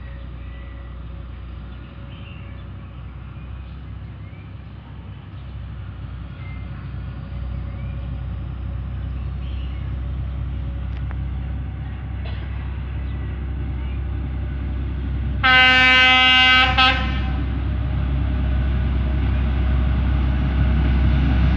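D11H diesel-hydraulic locomotive approaching with a low rumble that grows steadily louder, then sounding its horn in one loud blast of about a second and a half, about two-thirds of the way in.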